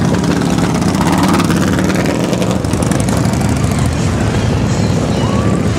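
Motorcycle engines rumbling loudly and steadily in street traffic, with one revving up between about one and three seconds in.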